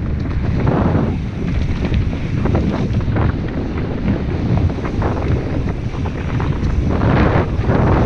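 Wind buffeting a GoPro microphone on a fast mountain-bike descent, over a heavy rumble of knobbly tyres rolling on a dirt trail. The bike clatters and knocks over bumps throughout, with louder surges about a second in and near the end.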